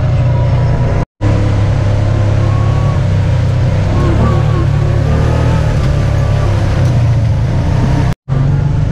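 Off-road vehicle engine running steadily under way, a loud low drone. The sound cuts out completely for an instant about a second in and again near the end.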